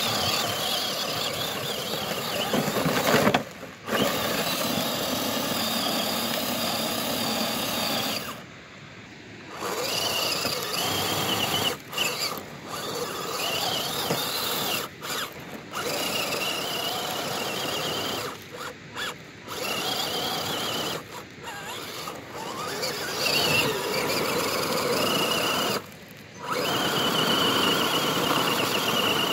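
1/10-scale RC crawler's electric motor and gearbox whining in bursts, rising and falling in pitch as the throttle is worked and cut several times, with the tyres spinning on loose gravel and rock.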